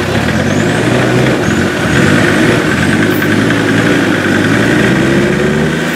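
Land Rover Discovery TD5's five-cylinder turbodiesel engine working steadily as the truck crawls through a deep mud rut, its pitch rising slowly in the second half.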